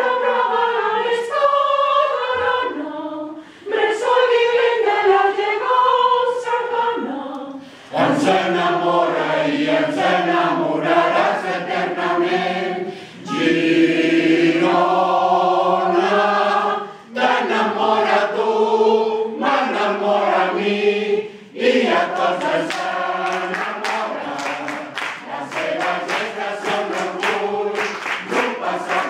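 Mixed choir singing a cappella in phrases with short breaks between them, men's and women's voices together. In the last third, sharp hand claps join in over the singing.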